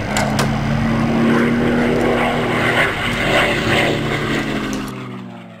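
Propeller aircraft engine running steadily, fading out near the end.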